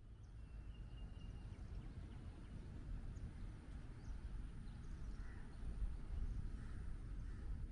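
Outdoor ambience: a steady low rumble with birds calling faintly. One bird calls several times in the second half.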